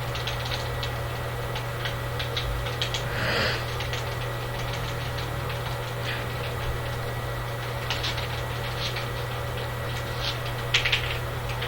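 A steady low hum with scattered light clicks, and a brief soft hiss about three seconds in.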